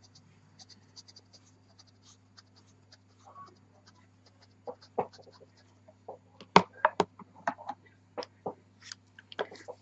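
Pastel pencil making short dabbing strokes and ticks on velour paper, faint at first, then a run of sharper clicks in the second half as the wooden pastel pencil is set down among the other pencils. A faint steady low hum runs underneath.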